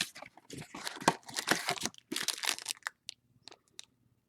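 Trading-card pack wrappers being torn open and crinkled by hand: a run of short crackly bursts over the first three seconds, then a few light ticks.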